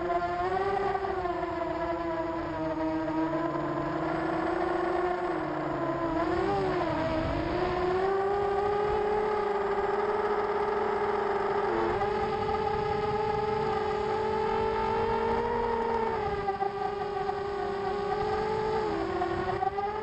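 Mini FPV racing quadcopter's brushless motors and propellers whining, picked up by the onboard camera. The pitch rises and falls with the throttle, with a wobble about six to seven seconds in and brief dips near twelve and nineteen seconds.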